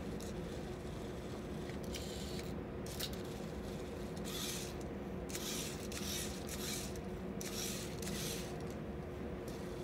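VEX robot's drive motors and omni-wheels whirring in short spurts, about seven bursts each under a second, as it turns and moves on a foam mat to pick up a ring. Under them runs a steady low hum.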